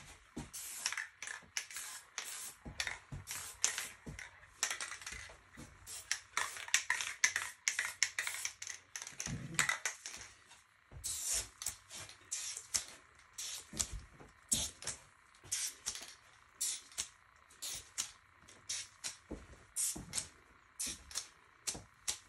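Aerosol spray paint can let off in many short hissing bursts, about one or two a second with a few longer sprays, as when stars are spattered onto a spray paint painting.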